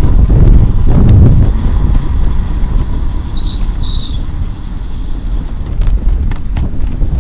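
Wind buffeting the microphone of a camera on a bicycle at racing speed, a loud low rumble that is heaviest in the first second or so and eases off after. Two faint, short high chirps sound about halfway through.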